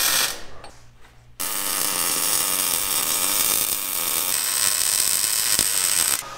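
MIG welding arc, short-circuit transfer: a brief burst right at the start, then a steady weld bead for about five seconds that cuts off abruptly just before the end.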